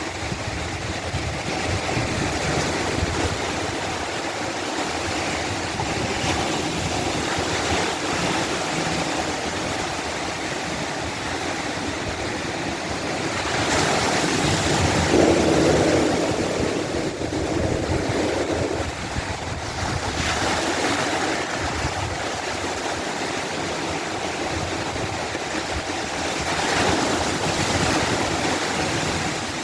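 Ocean surf breaking on a beach: a continuous wash of waves, swelling louder as a bigger wave breaks about halfway through and again near the end.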